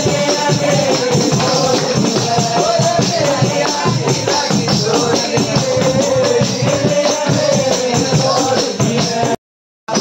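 Pahari Nati folk music with a wavering melody over a fast, steady beat, and a crowd clapping along. The sound cuts out abruptly for about half a second near the end.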